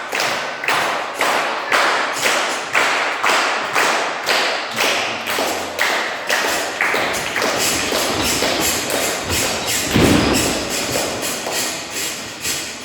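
Steady rhythmic thumps, about two a second, echoing in a hall, with one heavier, deeper thud about ten seconds in.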